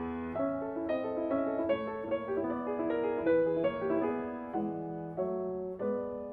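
Grand piano played solo: a melody of separate notes, several a second, over held lower notes.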